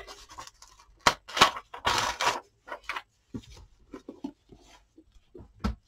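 Crackling and rustling of a paper page being torn out of an old book: several sharp cracks and short rips, with a soft thump near the end.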